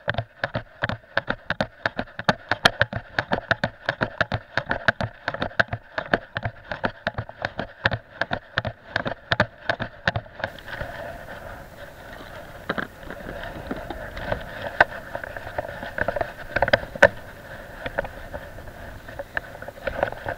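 Handling noise from a body-worn action camera as the wearer walks on concrete: quick, regular knocks, about four a second, with jacket fabric rubbing against the microphone. After about ten seconds the knocks slow and become scattered while the rubbing goes on.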